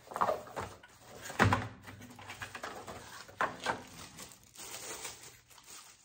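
Packaging being handled as an electric kettle's base is unwrapped: a clear plastic wrap and cardboard insert rustling, with a few knocks. The loudest is a dull thump about one and a half seconds in.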